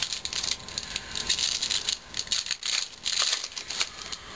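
Plastic-foil wrapper of a 2011 Topps baseball card pack crinkling and tearing as it is opened and the cards are pulled out, in irregular short crackles.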